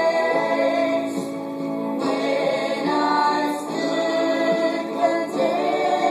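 Women's voices singing a gospel song together, holding long, steady notes.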